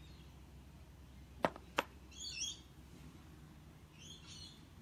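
Two light taps about a third of a second apart, a game token set down on a Monopoly board, followed by two short high chirps of a bird in the background.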